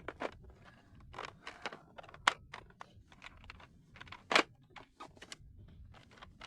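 Plastic X-Shot toy blaster being handled: a string of sharp plastic clicks at uneven spacing as its two buttons are pressed and the blue part is pulled at to release it, with two louder clicks about two and four seconds in.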